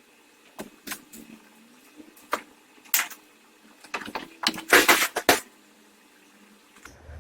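Scattered sharp metal knocks and clicks of a front shock absorber strut assembly being worked loose and removed, with a louder burst of rattling clatter near the middle.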